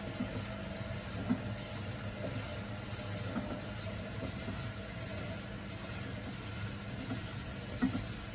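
Whirlpool washing machine running in an abnormal spin cycle: a steady hum with a few short knocks.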